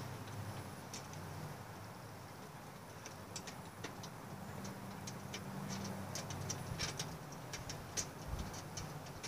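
Faint, irregular light ticks and clicks as a small steel eye bolt is turned by hand into a threaded insert, coming more often in the second half, over a steady low hum.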